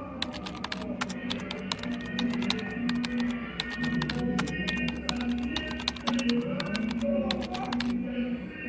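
Rapid keyboard-typing clicks, a typing sound effect laid under on-screen text as it is typed out, over background music. The clicks stop near the end.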